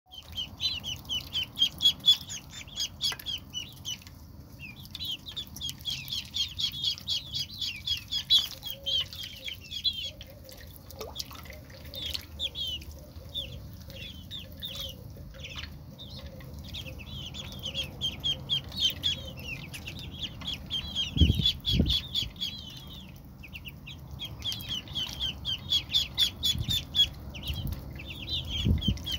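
Ducklings peeping: fast, continuous runs of short high-pitched peeps that break off briefly now and then. Two dull low thumps come about two-thirds of the way through.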